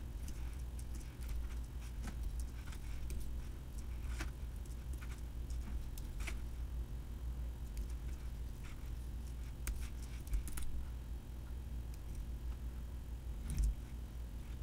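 Computer keyboard keys clicking irregularly as text is typed, over a steady low hum; one louder click near the end.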